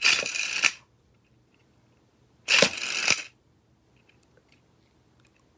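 Beyblade Burst Sparking Launcher's string pulled twice, each pull a short noisy whir under a second long, the second about two and a half seconds after the first.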